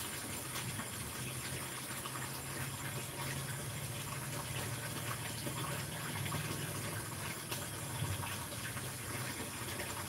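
Steady background hiss with a low hum, with no speech.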